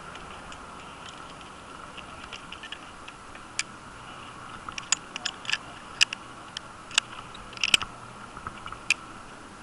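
Irregular sharp clicks and clinks, about a dozen and thickest in the second half, of a tree climber's metal rigging hardware being handled as he sets a rigging ring device on the trunk.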